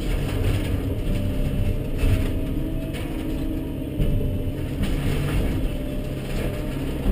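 Volvo EC140BL tracked excavator heard from inside its cab: the diesel engine and hydraulics run steadily under load while the bucket crunches through rotten barn timbers and sheeting, with sharp cracks and knocks about two, four and five seconds in.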